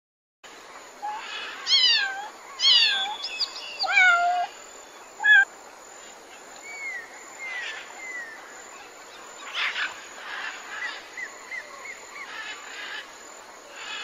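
A gamebird calling: four loud falling calls in the first few seconds and a short sharp one, then a run of softer falling calls and a few rasping notes.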